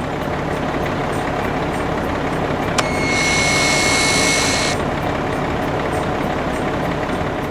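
Heavy vehicle engine sound effect running steadily. Partway through, a high steady whine with a hiss comes in for about two seconds, then stops.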